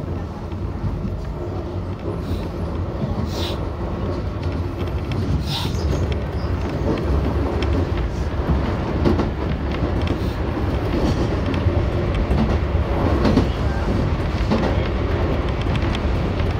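Keihan electric train heard from inside the leading car, running with a steady low rumble as its wheels click over pointwork, growing slowly louder as it gathers speed. A few short high squeaks come in the first few seconds.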